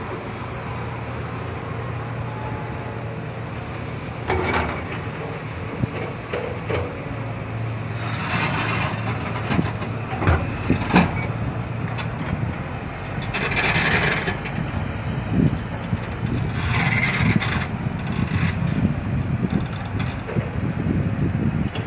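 Heavy diesel earthmoving machinery running steadily, with repeated rough scraping and grinding bursts of soil and steel, and a few sharp knocks among them.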